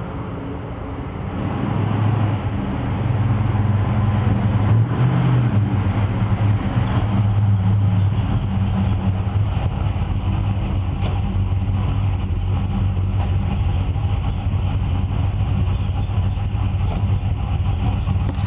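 1974 Dodge Dart Sport's engine running, growing louder about two seconds in and then holding steady.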